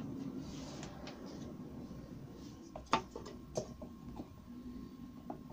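A few light clicks and knocks as a small wooden offcut is handled and set down on a router table's metal insert plate against the bit, the sharpest about three seconds in. A low steady hum runs underneath; the router itself is not running.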